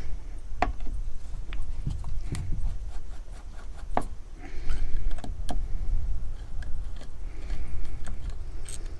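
Scattered light metal clicks and taps with brief scraping as a screwdriver and fingers work small parts off a dismantled Stihl 028 AVS chainsaw, over a steady low rumble.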